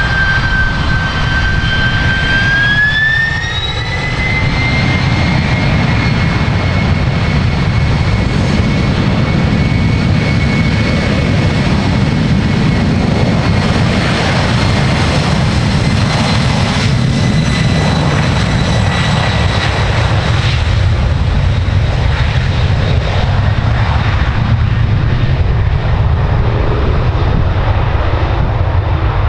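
Jet airliner engines at high power: a loud, steady rumble with a whine that rises in pitch about three seconds in as the engines spool up, then holds and fades in the second half.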